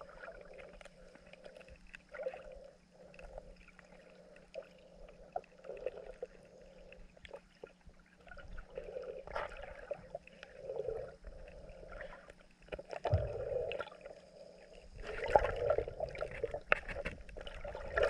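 Small waves lapping and water sloshing, faint and uneven. A low rumble joins near the end.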